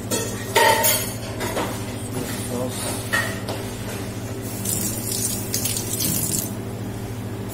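Oil poured from a bottle into a steel pot, with sharp clinks and knocks of glass and metal near the start and again about three seconds in, over a steady low hum. A rustle of cloth follows as the phone brushes against a shirt.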